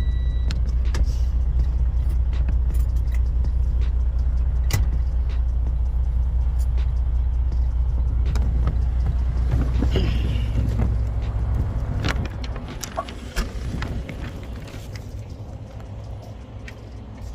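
A semi truck's diesel engine idles in a steady low rumble, heard inside the cab, with scattered clicks and rustles of things being handled. About twelve seconds in the rumble drops away, and a few sharp knocks follow.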